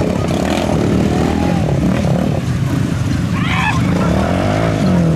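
Lifted ATV engine revving hard, its pitch rising and falling as the machine wheelies through a muddy water hole.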